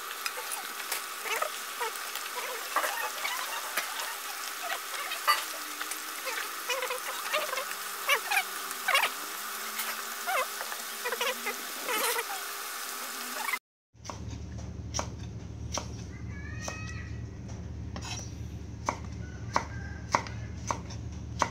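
Chicken pieces bubbling in a stainless steel pot on an induction hob, with a steady sizzling hiss and metal tongs clicking against the pot. About 14 seconds in this changes to a knife chopping a vegetable on a wooden board, about one to two chops a second.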